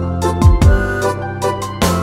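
Instrumental nursery-rhyme backing music with a keyboard melody over sustained bass notes, and two low drum thumps, about half a second in and again near the end.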